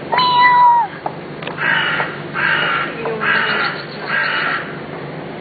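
A crow cawing four times in a regular series, each call harsh and about half a second long. Just before the caws there is a short steady high tone lasting under a second that drops off at its end.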